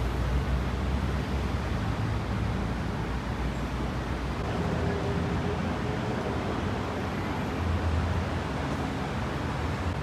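City road traffic: a steady mix of engine rumble and tyre noise from passing vehicles.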